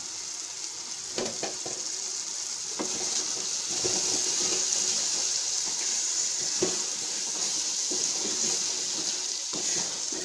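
Small potatoes and dried fish sizzling as they fry in spice masala in a metal pot, with a steady hiss that grows louder midway. A few knocks of a wooden spatula against the pot as it is stirred.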